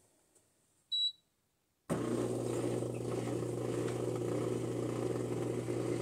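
A single short electronic beep from a Comfee countertop dishwasher's control panel as a button is pressed, then about a second later the dishwasher starts its cycle and runs with a steady hum and rushing noise.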